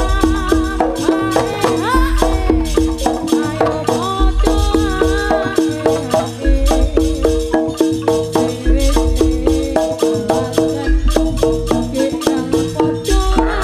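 Live Javanese jaranan gamelan music: a fast repeating pattern of struck pitched notes over drum strokes, with a deep low stroke about every two seconds and a wavering melody line above. Near the end a new high held tone comes in.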